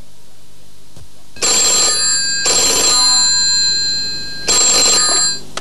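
Rotary-dial desk telephone ringing, in three bursts that start about a second and a half in.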